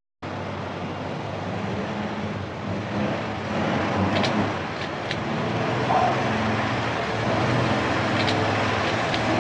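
Street traffic with a vehicle engine running steadily, cutting in suddenly just after the start, with a few faint high clicks in the middle and near the end.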